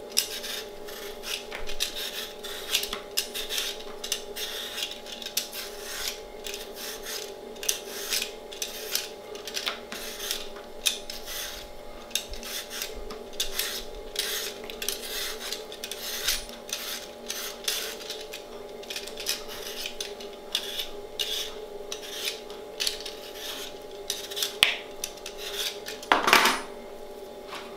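Y-shaped vegetable peeler scraping the skin off a raw potato in quick, repeated short strokes, over a steady background hum. A louder knock comes near the end.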